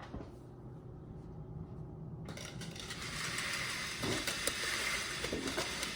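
Handling noise: rustling with small scrapes and light knocks while things are moved about. A steady hiss comes in suddenly about two seconds in.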